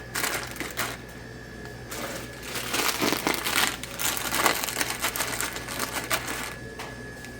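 Plastic chip bags crinkling as they are handled and straightened by hand, in irregular bursts with brief lulls.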